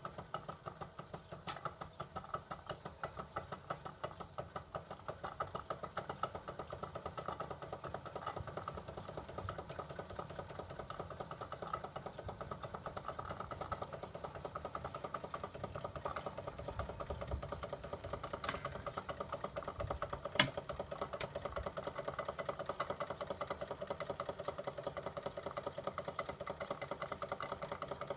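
Wilesco D15 toy steam engine running steadily, with a fast, even chuffing beat, driving a toy Ferris wheel. Two sharp clicks come about twenty and twenty-one seconds in.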